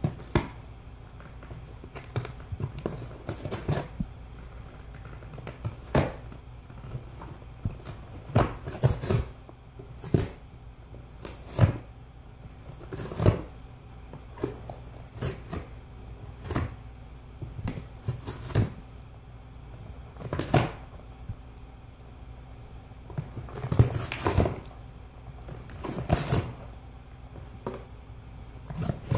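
Golden retriever tearing and chewing a cardboard box: irregular rips, crunches and knocks of cardboard every second or two, with the loudest cluster about three-quarters of the way through.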